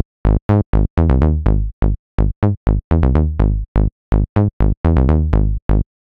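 Plucky saw-wave synth bass from the Serum soft synth playing a choppy bassline of short, separate notes, about four a second with gaps between. Each note's bright top dies away quickly as the filter envelope's short decay closes the filter.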